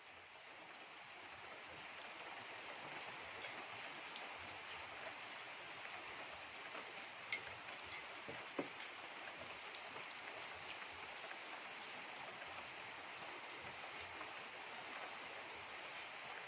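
A steady rushing hiss that swells up over the first second or two, with three faint ticks near the middle.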